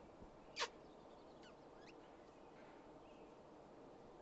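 Quiet outdoor ambience with one short, sharp, high squeak-like call about half a second in, followed by a few faint bird chirps.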